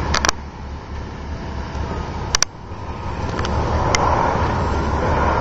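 Fire engine's diesel engine running with a steady low rumble that grows a little louder in the second half, with a few sharp clicks about a quarter second in, near halfway and about four seconds in.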